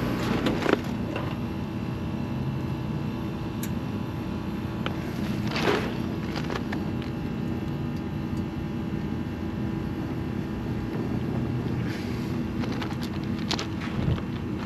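Steady rooftop background of rushing air with a low mechanical hum, a brief swell about halfway through, and a few sharp clicks of hose fittings being handled near the end.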